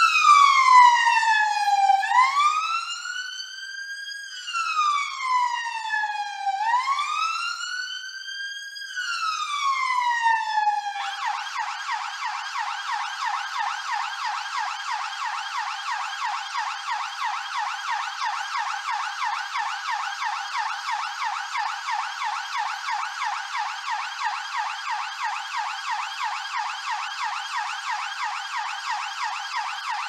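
London police car's electronic siren sounding a slow wail, its pitch rising and falling about every two and a half seconds, then switching about eleven seconds in to a rapid yelp.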